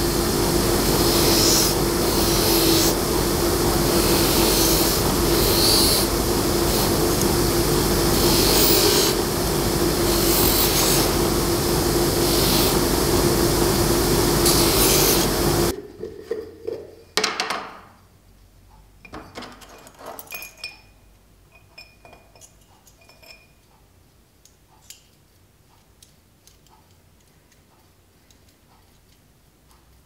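Bench grinder with a wire wheel running steadily with a constant hum, a small forged steel buckle piece held against the spinning wire brush so the hiss swells and fades. It cuts off suddenly about halfway, leaving light clinks and taps of small metal tins and tools on a workbench.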